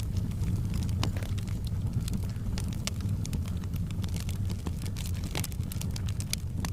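Wood bonfire burning: frequent sharp crackles and pops of burning wood over a steady low rumble.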